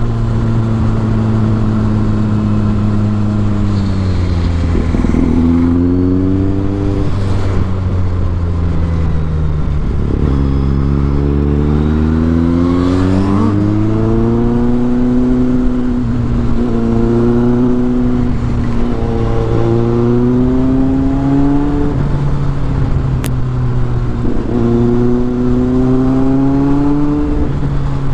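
Motorcycle engine pulling along, its pitch climbing and dropping several times as the throttle opens and closes, with wind and a steady hiss from the wet road underneath.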